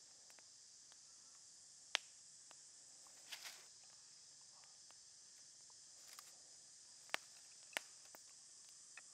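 A steady high-pitched insect chorus, like crickets, runs underneath. Over it come a few sharp light clicks, the loudest about two seconds in, and a brief rustle about three seconds in.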